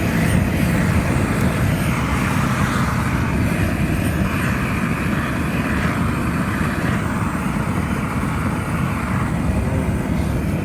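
Handheld propane weed torch burning with a steady flame roar while scorching weeds, the hiss growing stronger from about two seconds in until near the end.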